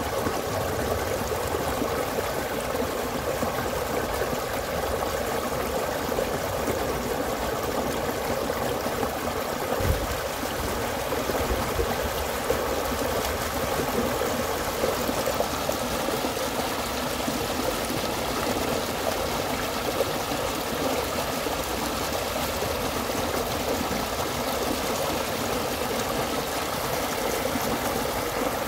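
Small fast-running stream, water rushing steadily, with a brief low thud about ten seconds in.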